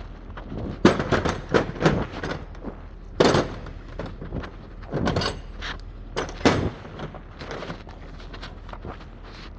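Irregular clunks, knocks and rattling of a cordless impact wrench and its battery pack being handled, in a cluster of knocks early and then single sharp knocks about every one to two seconds.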